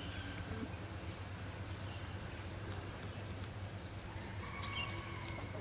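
Rural outdoor ambience: a steady high insect drone with short high chirps repeating about every half second, over a low hum.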